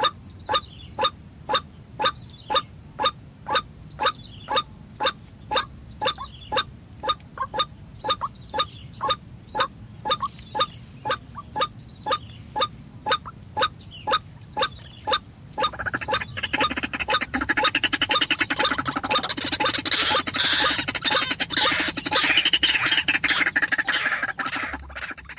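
White-breasted waterhen (ruak-ruak) calling: short calls repeated evenly about twice a second, breaking about two-thirds of the way in into a louder, dense chattering chorus.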